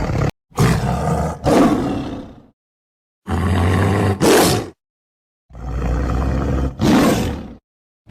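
Tiger roaring: after a short cut-off fragment, three separate roars of about two seconds each. Each one swells into a louder second surge partway through, and they are separated by abrupt cuts to dead silence.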